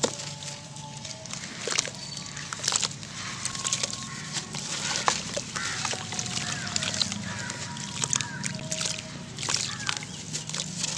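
Crunchy charcoal cement chunks crumbled between bare hands: a run of gritty crunches and sharp crackles, with crumbs and grit splashing into a bucket of water.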